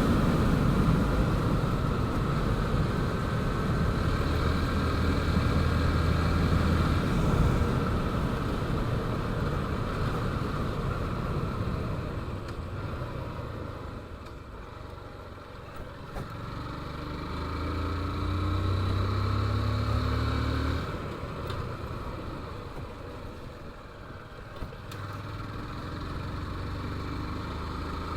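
Motorcycle engine running while riding, mixed with wind and road noise; the engine note eases off about halfway through, then picks up again, rising as it speeds up.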